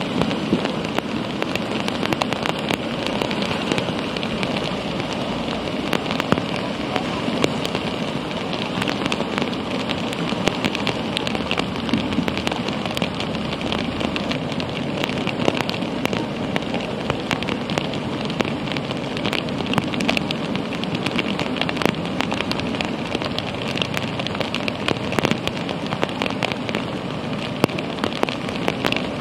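Rain and a rushing flooded river: a continuous wash of noise with many small ticks scattered through it.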